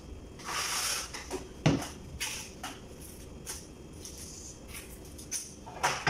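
Scattered knocks and clicks as crabs are picked out of a large aluminium cooking pot and handled against the dishes. A short scraping hiss comes about half a second in, and the loudest knock comes just before two seconds.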